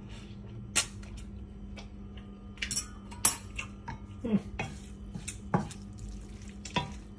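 Cooking utensils clinking and knocking against a frying pan and a bowl, about six sharp clinks spread over a few seconds, over a steady low hum.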